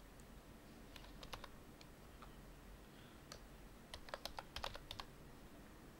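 Faint keystrokes on a computer keyboard: a few scattered taps, then a quicker run of about eight keys about four seconds in.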